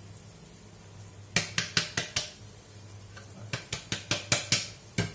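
Sharp taps of a utensil knocked against the metal cooking pot, in two quick runs of five or six, knocking the last of the blended curry paste into the pot. A steady low hum runs underneath.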